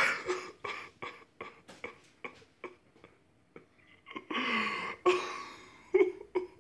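A person chewing a raw hot chili pepper close up, a quick irregular run of short crunching bites. About four seconds in comes a longer rough burst from the throat, cough-like, as the heat hits.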